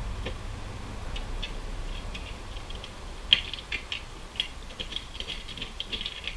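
Irregular light clicking of small metal hardware being handled as M6 bolts and nuts are fitted into the inner rail of a roof-top tent's base, with one sharper click about three seconds in.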